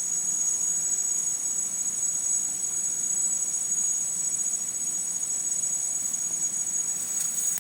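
Steady, high-pitched chorus of insects, crickets or cicadas, with an even rushing noise underneath.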